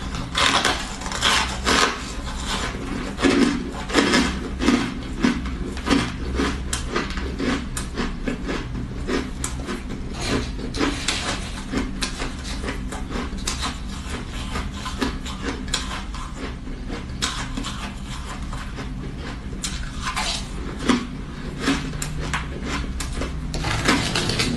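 Close-up crunching of soft, crumbly ice being chewed, a fast irregular crackle, thinning out for a few seconds after the middle, with a plastic spoon scraping and scooping the ice. A steady low hum runs underneath.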